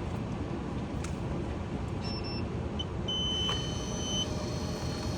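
A steady electronic beep lasting about a second, preceded by a short chirp, from the fresh-squeezed orange juice vending machine signalling that the finished cup is ready to collect. Steady street traffic rumble underneath.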